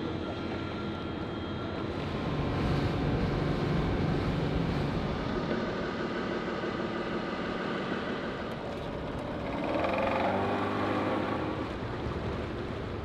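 Outboard motors on inflatable assault boats running steadily at sea, mixed with wind and water noise, the sound swelling a little twice.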